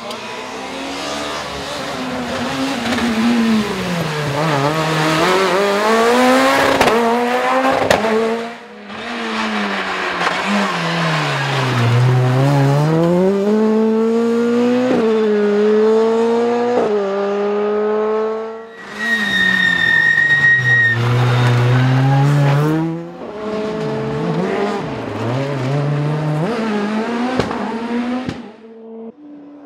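Rally car engines revving hard, pitch climbing through the gears and dropping on the brakes into corners, across several short clips of cars going by at speed. A steady high whistle sounds for about two seconds past the middle.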